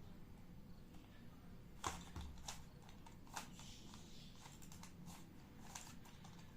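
Plastic Rubik's Cube being turned by hand: faint, irregular clicks and clacks of the layers snapping round, the loudest about two seconds in.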